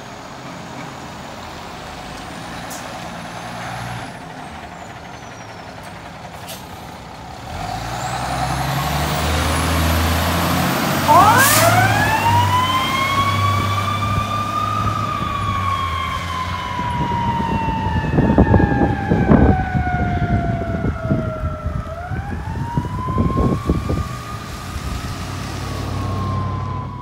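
Fire engine's diesel engine revving as the rig pulls out, then its siren winds up with a steeply rising wail about eleven seconds in, just after a sharp burst. The siren's pitch falls slowly for several seconds, winds up again a few seconds before the end and falls away.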